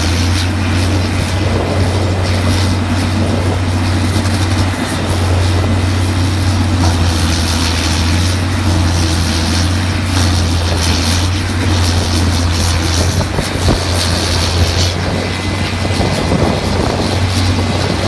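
Bruno Monster forest wood chipper running under load as tree trunks are fed in: a steady low hum with a dense, noisy rush of machinery and chipping over it.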